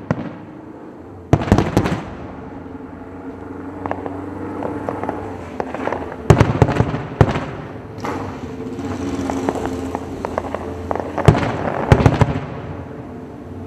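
Distant aerial firework shells bursting in three clusters of sharp booms and crackles, one roughly every five seconds, with a rumble that hangs on between them.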